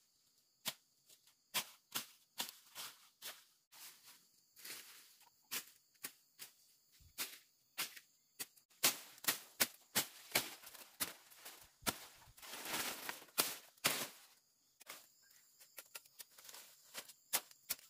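Irregular sharp knocks and snaps, one or two a second, coming thicker in the second half, with a stretch of rustling over a faint steady high buzz.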